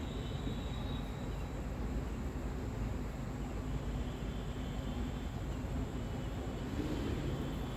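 Steady ambient background noise: a low rumble with faint high-pitched tones, and no distinct events.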